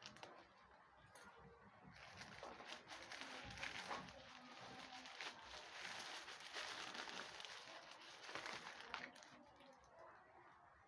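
Faint rustling and crinkling of packaging being handled, a crackly stretch that starts about two seconds in and lasts about seven seconds, with a sharp click just after the first second.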